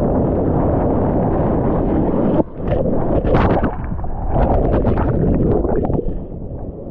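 Muffled, steady rush of surf water and wind against a GoPro riding with a bodyboarder, changing suddenly about two and a half seconds in to irregular splashing and bubbling crackle of water over the camera.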